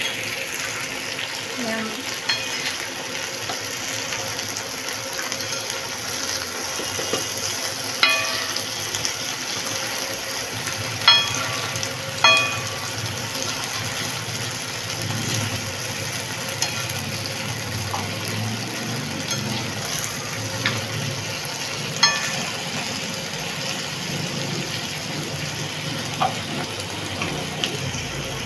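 Sliced potatoes shallow-frying in oil on a tawa with a steady sizzle. A metal fork clinks against the pan a few times as the pieces are turned, each clink ringing briefly.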